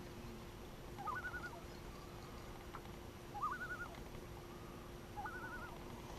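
A bird calling three times, each call a short rising note that breaks into a quick wavering trill, over a faint steady hum.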